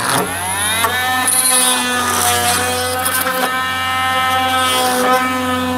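Milwaukee M18 cordless oscillating multi-tool with a cold knife blade starting up with a rising whine over the first second, then running with a steady whine as the blade is worked into the urethane bond at the edge of the roof glass.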